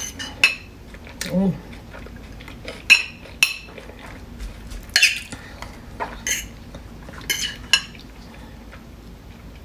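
Kitchen utensils clinking against pots and dishes, a scatter of sharp, irregular clinks with a short ring after each, as food is handled and served.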